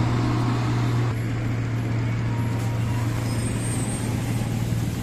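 Heavy vehicle engine running steadily with a low, even hum; the sound drops slightly in level about a second in.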